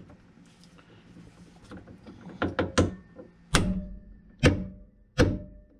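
Hammer striking a hand impact driver set on a rusted door-hinge screw: a few light taps, then three heavy blows, each with a short metallic ring. The tool is being driven to break the corroded screw loose.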